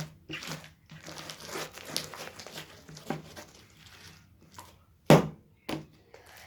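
Slime being squeezed and worked by hand, giving irregular squishy crackling sounds, with one sharper, louder burst about five seconds in.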